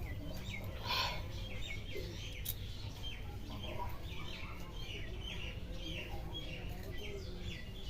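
Small birds chirping busily, short high chirps repeating several times a second, with a brief breathy noise about a second in.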